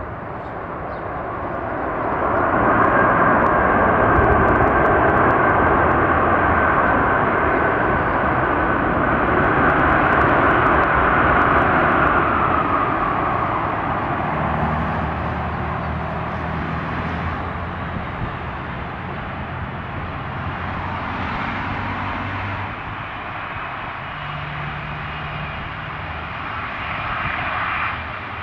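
Boeing 747-400 freighter's four jet engines on the landing rollout. The noise swells loud about two seconds in and stays up until about twelve seconds, which fits reverse thrust being used to slow the aircraft after touchdown. It then eases off to a lower, steady engine noise as the jet rolls on slowly.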